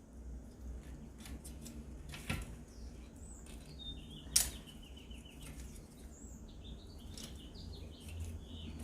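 Sharp metal clicks from hands working on a bicycle's chain and gears, two of them standing out, the louder one about four seconds in. Faint bird chirps come and go in the background.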